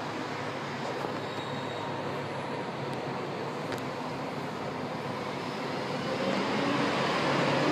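São Paulo Metro train running, a steady rumble with faint steady tones that grows louder near the end.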